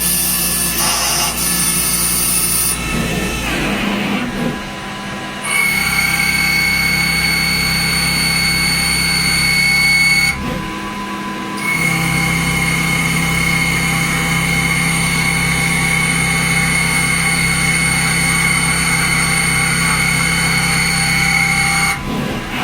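CNC milling machine cutting metal with a carbide milling cutter: a loud, steady high whine over a low hum. The sound breaks off or changes twice, about four and about ten seconds in, then resumes.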